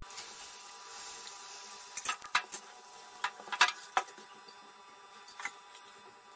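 Thin rice-flour dosa batter sizzling softly on a hot non-stick tawa as it is poured from a ladle, with a run of sharp metal clinks from the ladle against the pan about two to four seconds in, and one more clink as the steel lid goes on near the end.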